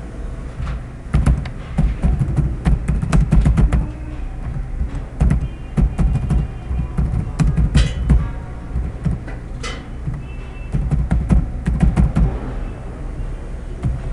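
Computer keyboard keys clicking in quick bursts of typing, with short pauses between words, over a steady low hum.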